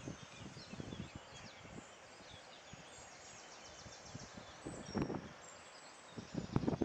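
Open-air hillside ambience with faint birds chirping, broken by irregular low rumbles and bumps that grow stronger about five seconds in and again near the end, with one sharp click at about five seconds.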